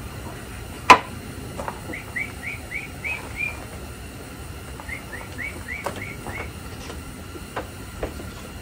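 A songbird singing two runs of about six quick, hooked chirps each. A single sharp click about a second in is the loudest sound, with a few fainter clicks later.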